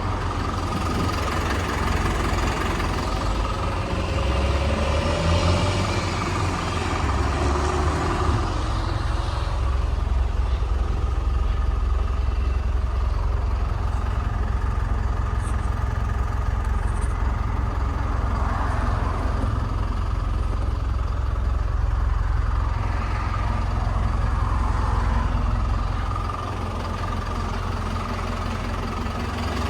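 Hyundai HD78 truck's diesel engine idling steadily, a continuous low rumble.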